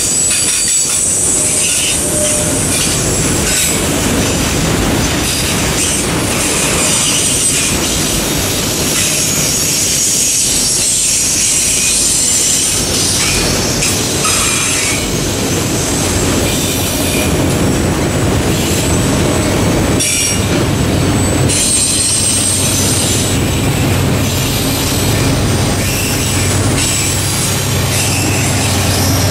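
Freight train's autorack cars rolling past at a level crossing, wheels clacking over the rail joints with high-pitched wheel squeal. From about three-quarters of the way in, a steady low engine drone grows as the mid-train GE AC44C6M diesel locomotive draws near.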